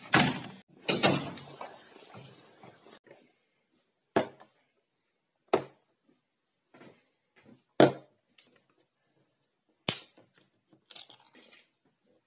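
A door's lever handle clacks and the door is opened, then four single sharp knocks a second or two apart and a short clatter near the end: objects set down on a wooden tabletop.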